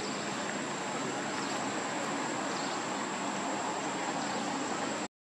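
Steady hiss of outdoor background noise with a faint high steady tone over it, cutting off abruptly near the end.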